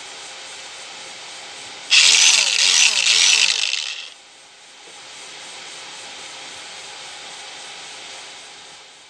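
Home-made cordless angle grinder's 12-volt 775 DC motor pulsed on in three quick bursts, its whine rising and falling with each one, about two seconds in; a steady hiss runs underneath.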